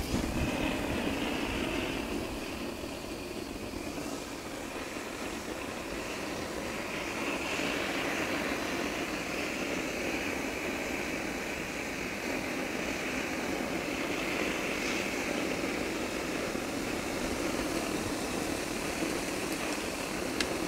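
A blowtorch burning steadily, its flame noise swelling slightly now and then as it heats bitumen roofing.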